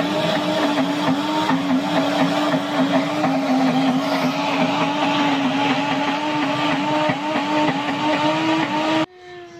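High-speed blender motor running loudly and steadily while grinding almonds in its jar into almond butter; its hum dips in pitch slightly again and again as the nuts load the blades. It cuts off suddenly near the end.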